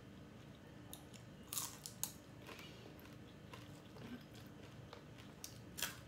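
A person chewing crispy battered fried shrimp, faint, with a few sharp crunches of the fried crust, the clearest about a second and a half and two seconds in and again near the end.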